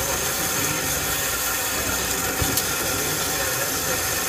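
Band saw blade cutting through a solid round steel bar: a steady machine noise with a thin high whine. The cut is dry, cooled by an air-and-lubricant mist instead of coolant water.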